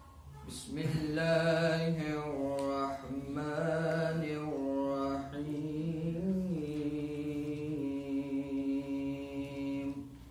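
A solo man's voice reciting the Quran in Arabic in the melodic, chanted tajweed style. It sings long phrases with pitch that rises, falls and glides, then holds one long steady note that breaks off near the end.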